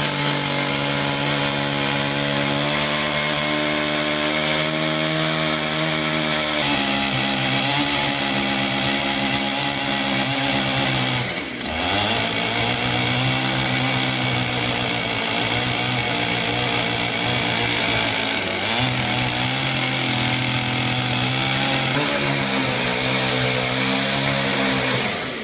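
Makita two-stroke gasoline chainsaw running steadily. Its pitch shifts a few times, and the sound dips briefly about eleven seconds in.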